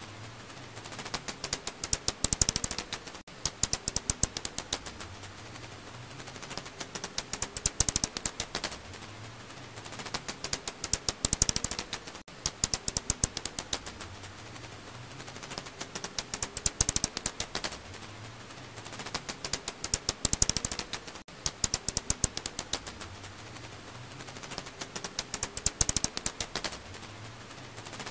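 Echolocation calls of a black house bat, brought down into the audible range, heard as rapid trains of dry clicks. The clicks come in bursts every two to four seconds over a faint steady hum.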